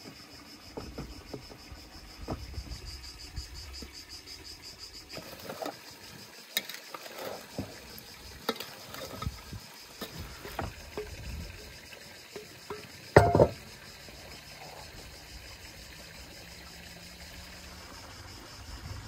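Hand food-prep sounds: pastry dough being pressed and handled on a wooden board, then blackberries dropping from an enamel bowl onto the pastry in a string of soft, irregular taps and clicks. One loud, sharp knock comes a little past halfway. An insect trills steadily in the background during the first few seconds.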